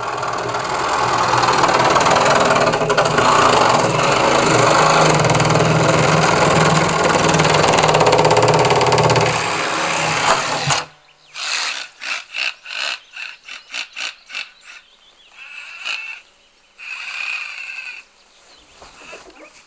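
A handheld power tool running loud and continuously as it cuts through a fibreglass cow sculpture, stopping abruptly about eleven seconds in. After that comes a rapid series of short, separate bursts of noise.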